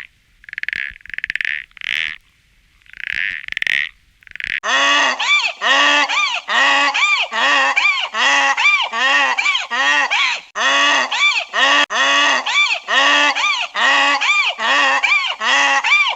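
Short noisy bursts of call, then, from about four and a half seconds in, a goose-like waterfowl honking loudly and rapidly, about three honks a second.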